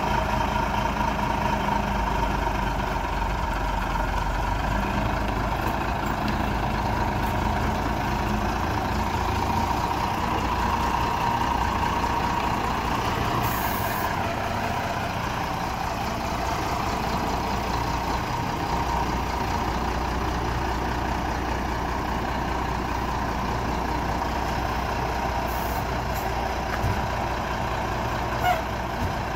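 Diesel engine of a 1994 Mack truck idling steadily, with a low hum under a steady whine.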